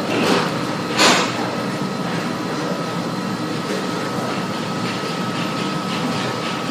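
Hospital emergency-room background noise: a steady rumble of air handling and distant activity with a faint steady high tone, and one brief loud noise about a second in.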